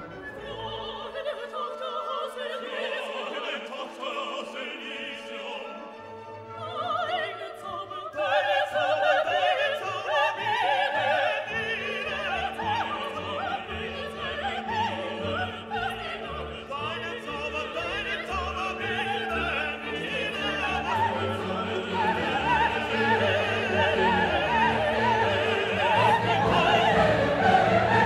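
Background music: an orchestral classical piece with operatic singing, growing fuller about eight seconds in and louder toward the end.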